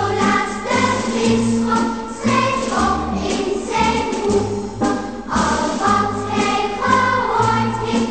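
Background music: a festive choir-style song with a steady bass line.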